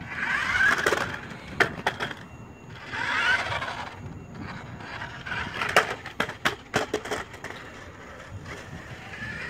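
FastLane RC stunt car driving and tumbling down concrete steps: its small electric motor whirs in three bursts as the wheels spin on the concrete, and its plastic body and wheels clatter against the steps in clusters of sharp knocks around two seconds in and again around six to seven seconds in.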